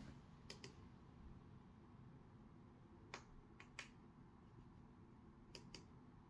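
Near silence broken by a few quiet, short clicks, mostly in quick pairs, from clicking the laptop's pointing device: once about half a second in, a few times around three to four seconds in, and twice near the end.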